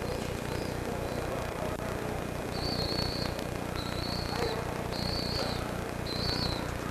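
Open-air town-square ambience on a camcorder microphone: a steady wash of background noise over a low hum. In the second half come four short, high whistle-like notes, each about half a second long, evenly spaced about a second apart.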